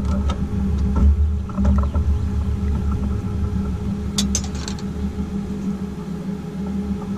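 Boat's outboard motor running steadily at trolling speed, a low even hum, with a few sharp clicks and knocks, the clearest about four seconds in, as a walleye and net are handled on the aluminum deck.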